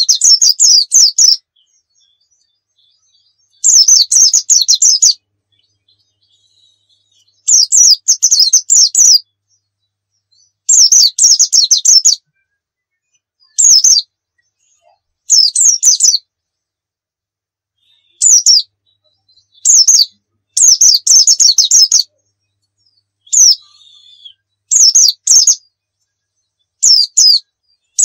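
White-eye (pleci dakun) singing in vigorous, fast, high twittering phrases of one to two seconds each, about a dozen of them, with silent gaps of one to three seconds between.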